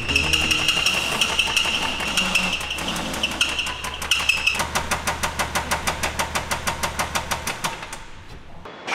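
BMW X3's N57 diesel engine running with a rapid, even knocking, about six or seven knocks a second, the sign of worn or damaged crankshaft bearings. The engine is shut off about eight seconds in.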